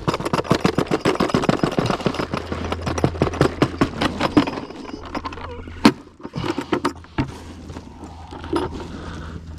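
Dry tortoise pellets shaken out of a plastic bucket, pattering onto a weathered wooden board in a rapid rattle that thins to scattered clicks after about five seconds.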